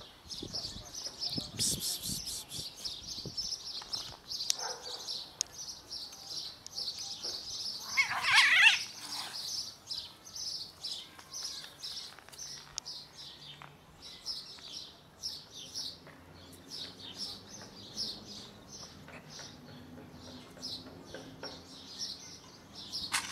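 Small birds chirping rapidly and without a break. About eight seconds in comes a short, loud cat screech, the loudest sound, an aggressive cry from one of two cats fighting over food.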